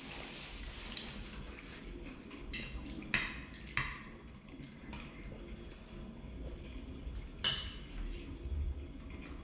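A metal fork clinking and scraping on a ceramic plate as food is picked up. There are a few sharp clinks, the loudest about three seconds in.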